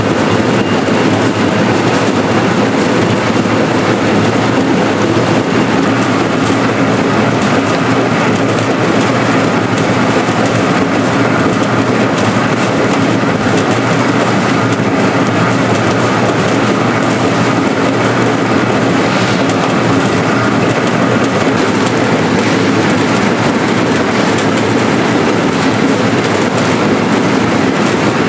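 Seed potato cutting machine and conveyor running with a steady, loud mechanical clatter as cut potato pieces tumble down onto the belt.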